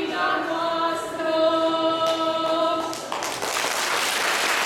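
Two women singing unaccompanied, holding a long final note that stops about three seconds in. Audience applause then breaks out.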